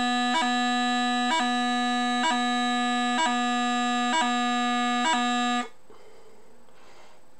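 Bagpipe practice chanter playing the E gracenote exercise: a steady B note cut six times, about once a second, by a short E gracenote blip. It stops sharply about five and a half seconds in.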